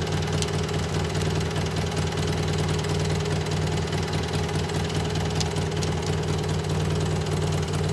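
A small engine idling steadily, with an even low running tone.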